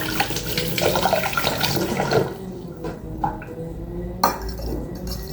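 Water running from a tap, shut off about two seconds in, followed by a few light knocks and one sharp clink of dishes.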